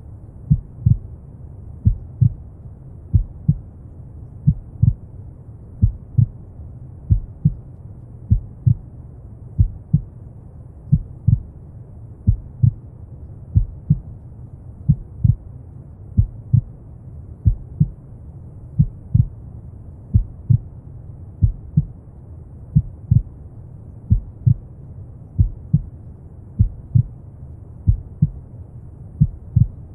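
Slow heartbeat, paired low lub-dub thumps repeating a little over a second apart, over a steady bed of brown noise.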